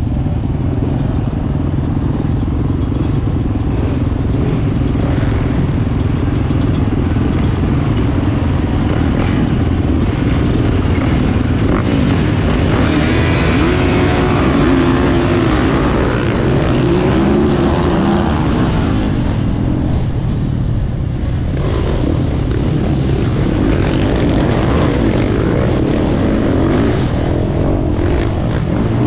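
450cc four-stroke motocross bike's engine heard from on board while racing, its pitch rising and falling as the rider works the throttle, with a brief drop about 21 seconds in.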